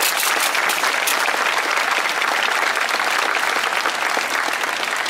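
Crowd applauding: dense, steady clapping that begins to ease near the end.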